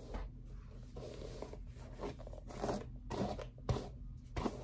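Long straight wig hair rustling as a hand runs through it and lifts it, in a string of short, irregular strokes.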